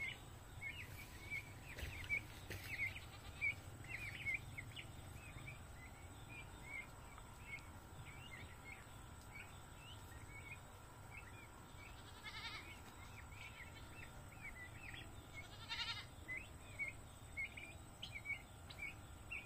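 Faint, repeated short high peeps from young turkeys, several a second, with two brief wavering calls about twelve and sixteen seconds in.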